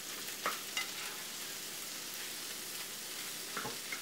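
Egg scramble sizzling in a nonstick skillet on a stove burner that has just been switched off but is still hot, with a few short scrapes of a plastic spatula stirring it, about half a second in and again near the end.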